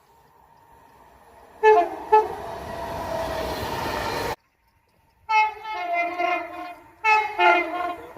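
Train horns: two short blasts over the rising noise of a passing train, which cuts off abruptly. After a short gap come two longer two-tone horn sounds, each a high note dropping to a low note.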